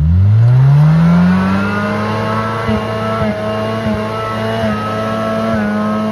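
4x4 SUV engine revved hard: the revs climb steeply over about the first second and a half, then hold high and steady with a few brief dips as the vehicle claws out of a deep rut. The engine is held at high revs while the vehicle moves slowly, with the clutch being slipped hard.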